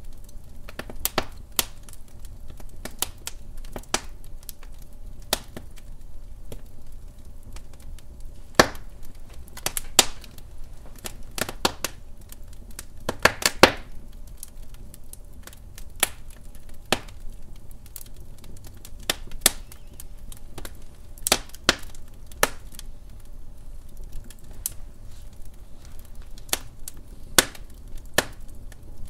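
Wood fire crackling in a fireplace: irregular sharp pops and snaps from the burning logs, a cluster of louder pops about thirteen seconds in, over a low steady rumble of flame.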